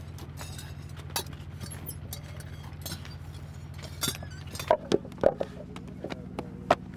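A steady low mechanical hum with scattered clicks and knocks. From about five seconds in, the knocks grow louder and more frequent.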